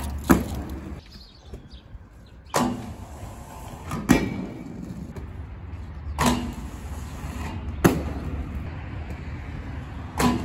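Inline skates grinding down a steel stair handrail: a sudden scrape as the skates lock onto the rail, a grinding slide of about a second and a half, then a sharp clack as the skater lands on the pavement. This happens twice, a few seconds apart, with a third grind starting near the end and a hard landing impact just after the start.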